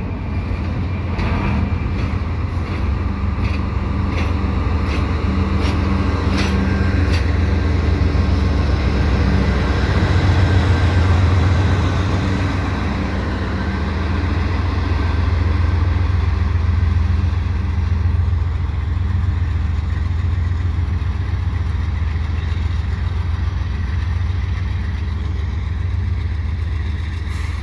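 A GE AC4400CWM diesel locomotive, the rear distributed-power unit pushing at the tail of a freight train, running past with a steady low engine drone. It is loudest as it goes by, about ten seconds in, then eases slightly as it moves away. A series of sharp clicks from passing wheels is heard over the first several seconds.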